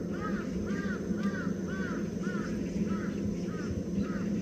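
A bird calling in a steady series of short, arched calls, about three a second, over a steady low rush.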